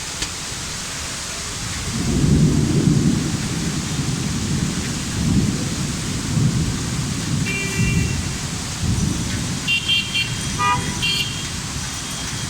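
Heavy rain pouring with a steady hiss, with deep rumbling swells coming and going from about two seconds in. Several short vehicle horn toots sound in the second half.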